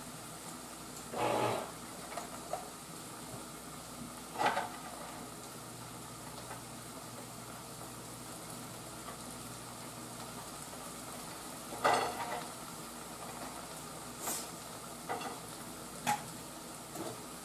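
Onions and peppers sizzling steadily in a frying pan on medium heat, with several short clinks and knocks of cans and utensils scattered through.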